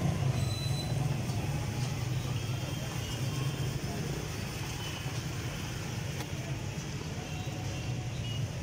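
A steady low mechanical hum, like an engine running, over street background noise.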